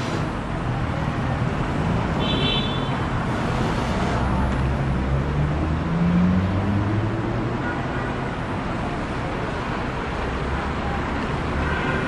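Steady road traffic: a continuous rumble of passing motor vehicles, with one engine note rising near the middle and a short high tone about two and a half seconds in.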